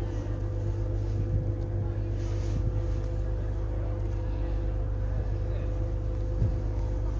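Two Class 185 diesel multiple units idling at the platform: their underfloor Cummins diesel engines make a steady low drone, with a steady higher hum on top.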